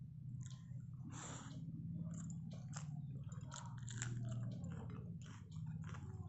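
Close-up eating sounds: a person chewing with wet mouth sounds and repeated crisp crunches, biting into fried gram-flour fritters and a raw green chilli. A steady low hum runs underneath.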